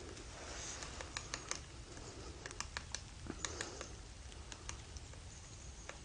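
Faint, irregular sharp clicks and ticks, several a second, with two brief soft high-pitched hissy bursts, about half a second in and about three and a half seconds in.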